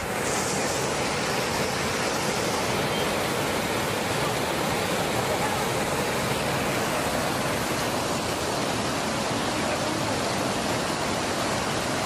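Waterfall rushing: a steady, even rush of falling water.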